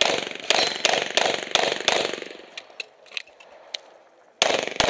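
Pistol shots: six rapid shots about a third of a second apart, then a pause of about two and a half seconds with a few faint clicks, then two more shots near the end. Each shot has a short echoing decay.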